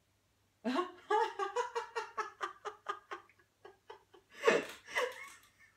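A woman giggling in a quick run of short laughs, then a loud breathy burst of laughter about four and a half seconds in.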